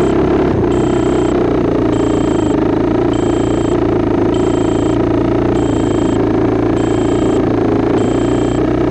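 Fading low-battery buzzer on the Easy Star FPV plane beeping high-pitched about once a second rather than buzzing. The beeps sound over a loud, steady drone.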